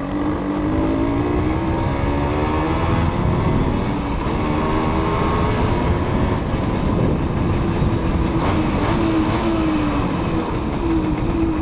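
Simson S51's small two-stroke single-cylinder engine heard onboard while riding, its pitch rising again and again as the bike accelerates and dropping back between, then running steadier near the end.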